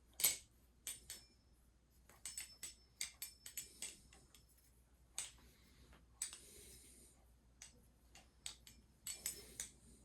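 Balisong (butterfly knife) being flipped through a fan combo: irregular metal clicks and clacks of the handles and blade swinging and knocking together, in quick runs with short pauses, the loudest right at the start.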